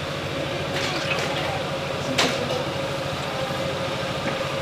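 A steady machine hum holding one even tone, with a single sharp click about two seconds in.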